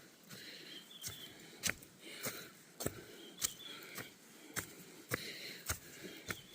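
Footsteps of a hiker on a mountain trail at a steady pace, about two steps a second, with heavy breathing between them.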